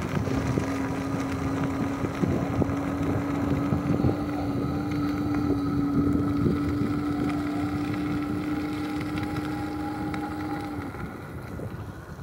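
Rear geared hub motor of a 2019 RadRunner electric bike whining steadily under power, rising slightly in pitch as the bike speeds up, then cutting off near the end. Under it are wind noise on the microphone and tyre rumble on the asphalt.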